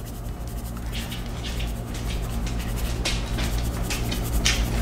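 Garlic powder shaken from a plastic spice shaker in several short strokes, with a steady low hum underneath.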